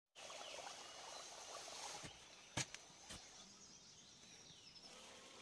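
Faint outdoor ambience with a few short sharp taps, the loudest about two and a half seconds in.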